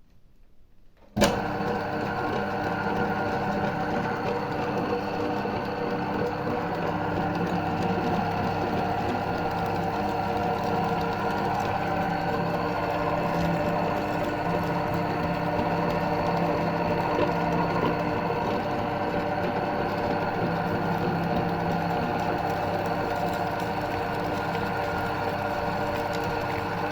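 Electric meat grinder switched on with a click about a second in, then its motor running steadily with a constant hum and whine while it grinds jelly candy.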